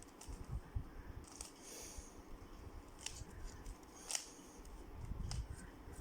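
Rubik's Cube faces being turned in quick succession: irregular plastic clicks with short scraping swishes as the layers slide.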